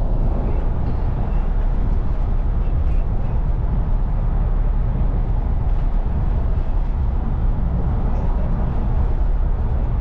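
Steady road and wind noise inside a car moving at highway speed, heavy in the low end and unchanging.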